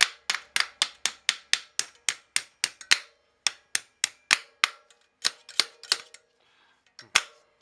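Makeshift hammer tapping rapidly and repeatedly on a dirt bike's rim lock, about three to four blows a second, to drive the lock down into the tire so the bead can drop into the rim's centre groove. The blows stop briefly about six seconds in, then start again.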